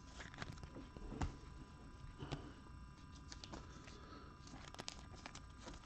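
Faint handling sounds of trading cards and packs on a tabletop: light taps and rustles, with one sharper knock about a second in.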